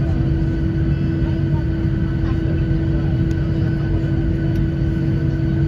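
Jet airliner cabin noise while taxiing: a steady low rumble of the engines at taxi power with a constant hum over it.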